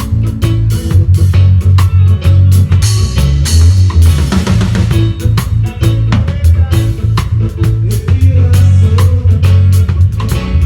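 A live band playing: a drum kit beating a steady rhythm over a strong bass line, with electric guitar. Cymbals ring out for a couple of seconds about three seconds in.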